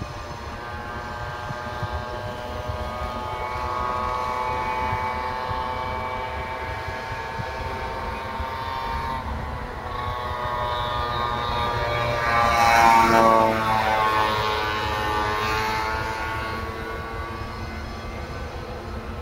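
Diesel locomotives with GM engines hauling a cement train, a droning engine note that climbs slowly in pitch. It swells to its loudest and bends in pitch about two-thirds of the way through, then eases off.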